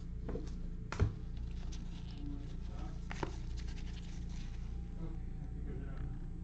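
A stack of 2021 Topps Series 1 baseball cards being flipped through in gloved hands: faint sliding and scratching of card stock, with a sharp click about a second in and a smaller one about three seconds in, over a steady low hum.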